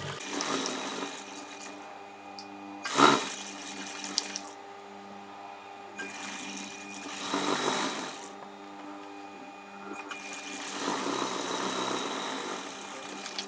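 Juki industrial sewing machine stitching in several runs of a couple of seconds each over a steady hum, with a sharp knock about three seconds in.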